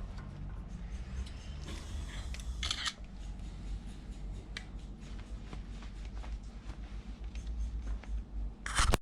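Faint clicks and light metal-on-metal scrapes of brake pads and their anti-rattle spring being fitted into a disc brake caliper, over a steady low hum. There are two short rasping scrapes, one about three seconds in and a louder one near the end.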